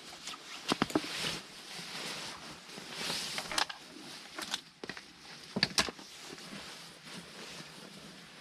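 Rustling, with scattered sharp clicks and knocks, a few of them clustered about a second in and again a little past the middle, as of gear being handled.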